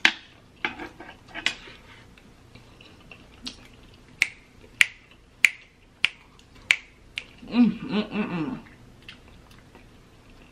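Fingers snapping, a few scattered snaps at first and then a steady run of about six snaps, roughly one and a half a second. Near the end comes a short, wavering hum from a voice.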